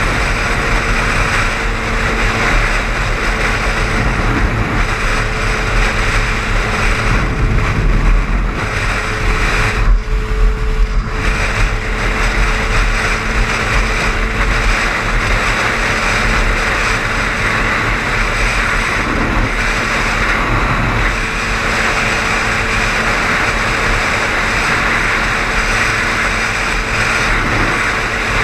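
Car driving at highway speed: steady road and tyre noise over a low rumble and a steady engine hum, with a brief drop in the hiss about ten seconds in.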